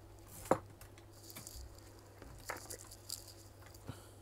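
Small clicks and light rustling from hands handling tools and a phone on a repair bench, the loudest a sharp click about half a second in, over a steady low electrical hum.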